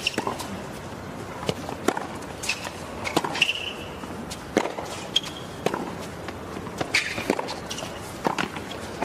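Tennis rally on a hard court: a series of sharp pops from racket strikes and ball bounces, with brief sneaker squeaks on the court.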